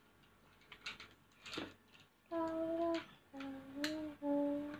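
A voice humming a short tune of three held notes, the first a little higher than the other two, starting about two seconds in. Before the humming, a few faint taps.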